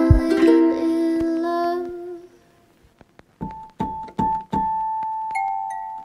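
Background music: a chord rings and fades out about two seconds in. After a short gap, a keyboard plays single high notes, struck about four times and then held.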